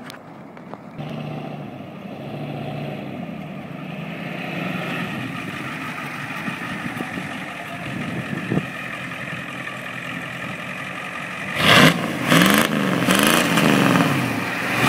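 Straight-piped 7.3-litre non-turbo IDI V8 diesel of a 1991 Ford F-350 running steadily, then revved hard several times near the end, the pitch rising and falling with each blip.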